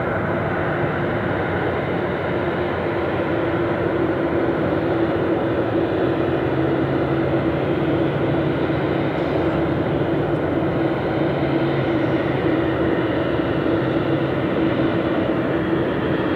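Boeing 777's twin turbofan jet engines running at low taxi power: a steady rumble with a steady low hum, holding level throughout.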